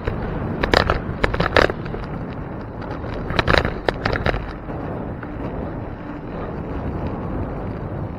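Bicycle being ridden: a steady rush of wind and tyre noise, with two spells of sharp rattling clicks, about a second in and again around three and a half seconds in.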